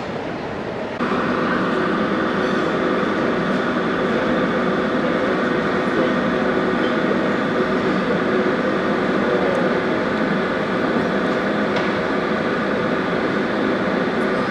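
A steady mechanical drone with several held tones over a noisy rush, stepping louder about a second in and then holding steady.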